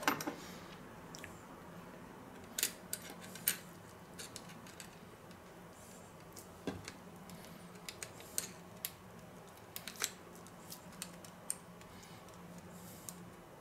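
Scissors snipping butcher's twine and small metal clicks from handling a rotisserie spit, a dozen or so scattered short snips and clicks. A faint steady low hum runs underneath.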